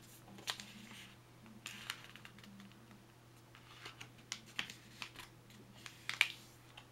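A sheet of paper being folded and creased by hand against a hard countertop: scattered short, crisp rustles and scrapes, the loudest near the end.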